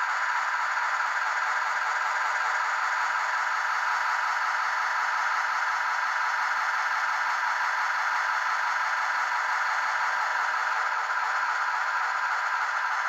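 Soundtraxx Tsunami sound decoder in a Blackstone HOn3 C-19 steam locomotive model playing rapid steam chuffs through its small speaker at full throttle, the 28th speed step. The chuffs come so fast that they run together into a steady rattle while the engine strains against a pull gauge.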